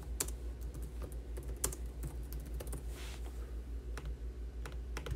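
Keys tapped on a computer keyboard in scattered clicks, about two a second, over a steady low hum.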